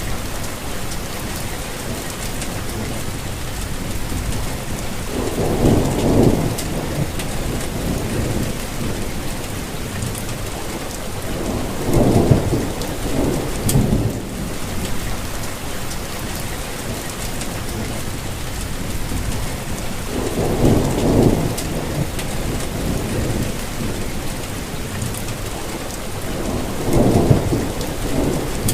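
Steady rainfall, an even hiss of many drops, with a deep low rumble swelling up four times, roughly every seven seconds.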